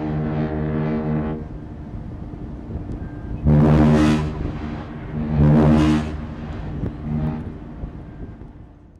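Deep ship's whistle of a Cunard liner: a long blast that stops about a second and a half in, then two short blasts of under a second each and a fainter third near the end, each trailing off slowly.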